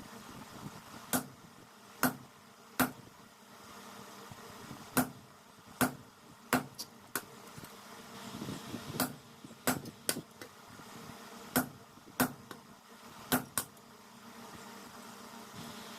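Hammer blows on steel, about sixteen sharp strikes at an irregular pace, often about a second apart and sometimes in quick runs of two or three, each with a short ring, over a steady low hum.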